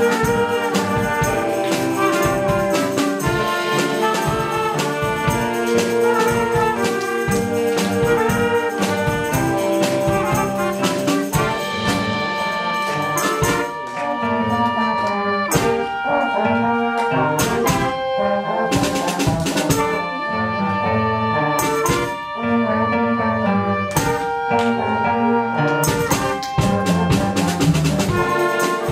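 A youth wind band playing live: saxophones, clarinet, trumpet and flute carrying a tune over a drum kit keeping the beat.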